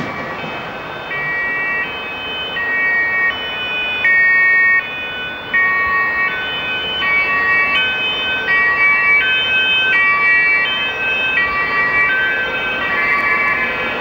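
A tune of held, siren-like tones that steps to a new pitch about every 0.7 seconds, over steady background rumble; one note about four seconds in is louder.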